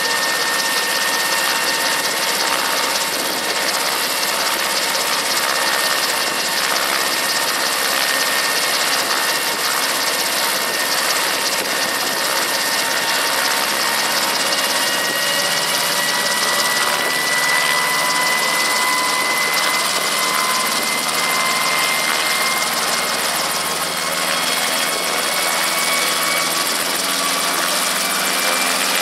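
Brantly B-2B helicopter's Lycoming piston engine running through a slow start-up, with a high whine that climbs slowly in pitch as the rotors gather speed.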